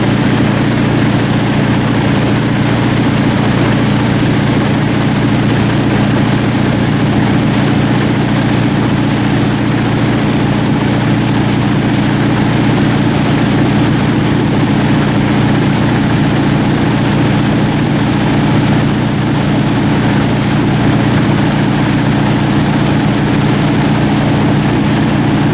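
Tow boat's engine running steadily at towing speed, heard from aboard the boat, with the rush of wind and water over it.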